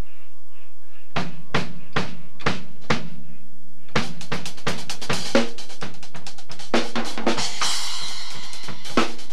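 Acoustic drum kit played with sticks: after about a second, five single drum strokes about half a second apart, then from about four seconds in a fast, dense run across the drums and cymbals, with cymbals ringing out near the end.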